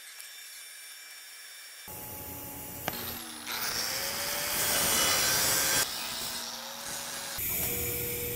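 A hand-held angle grinder runs up and grinds against the steel pipe for about two seconds, feathering out the stop of a TIG root pass before the weld is tied in. Near the end a quieter steady hiss starts as the TIG arc is struck again.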